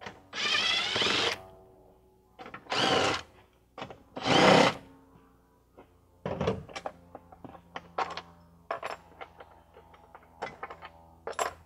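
Cordless drill/driver with a socket spinning out the 13 mm seat-mounting bolts in three short whirring bursts, the first about a second long, the other two shorter. From about halfway through, a string of light knocks and clicks as the loosened seat and its hardware are handled.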